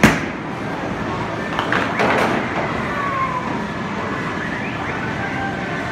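Mini bowling ball hitting the pins about two seconds in, a short clatter, over the steady electronic tones of arcade machines. A sharp knock right at the start.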